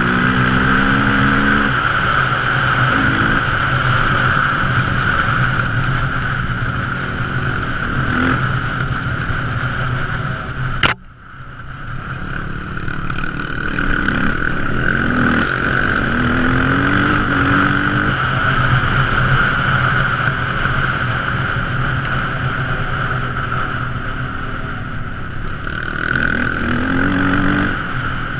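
Quad ATV engine running under way, its pitch rising and falling again and again as the throttle is opened and eased. A sharp click comes about eleven seconds in, after which the sound briefly drops away before the engine comes back up.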